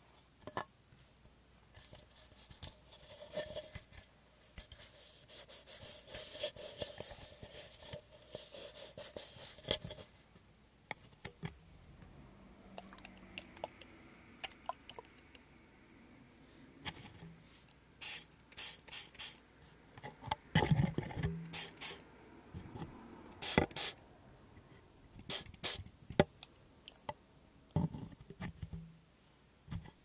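A small plastic spray bottle filled with water, spritzing in several short hissing squirts onto a plastic cup, along with clunks of the cup being handled. Earlier there is a longer stretch of rubbing and scraping.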